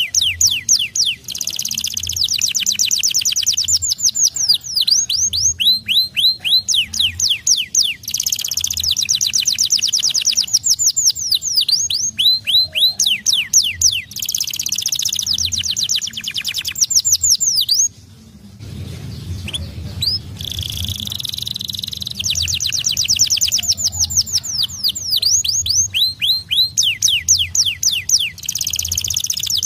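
Domestic canary singing energetically: long, near-continuous phrases of fast rolling trills made of repeated high, sweeping notes, broken once by a short pause about two-thirds of the way through.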